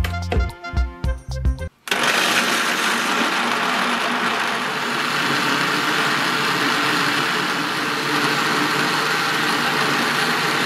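Background music with a beat for about two seconds, then a PowerChop 800W blender starts suddenly and runs steadily at high speed, puréeing chunks of produce and water into a smooth liquid.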